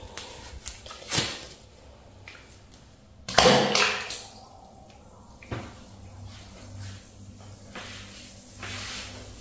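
A few light handling clicks, then about three seconds in a single sudden splash as a bath bomb is dropped into water, dying away within about half a second. A low steady hum runs underneath afterwards.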